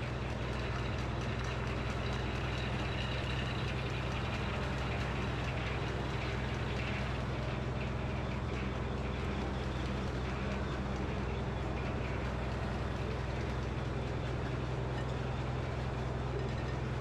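Frick sawmill running steadily, its power unit giving a low, even engine hum that grows slightly louder in the first second or two.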